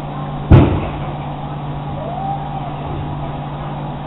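Washing machine on its spin cycle: a steady motor hum over the whirr of the spinning drum, with one sharp knock about half a second in.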